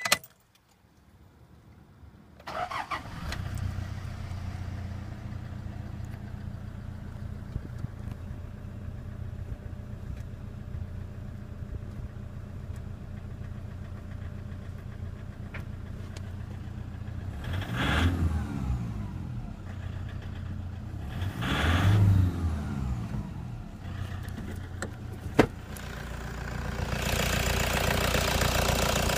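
Toyota Hilux 2KD-FTV 2.5-litre turbo diesel cranked and catching about two and a half seconds in, then idling, heard from inside the cab. It is revved twice, at about 18 and 22 seconds in, and a sharp click follows. Near the end the engine is louder, heard at the open engine bay, with diesel clatter that the uploader tags as injector rattle.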